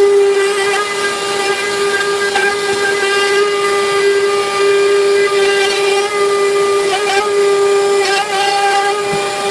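DeWalt trim router motor running at speed, cutting red oak on a circle jig: a steady high whine over a hiss, the pitch dipping briefly a couple of times near the end as the bit takes load.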